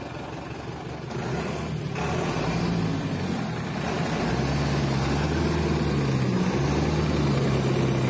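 Heavy diesel engine working under load during a rope tow of a truck stuck in mud. Its revs rise about two seconds in and again about four seconds in, and the pitch wavers.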